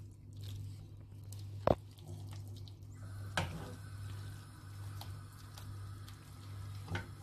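Silicone spatula stirring and pressing a thick chicken, flour and milk filling in a saucepan: soft squelching, with three sharp knocks of the spatula against the pan, the loudest about one and a half seconds in. A steady low hum runs underneath.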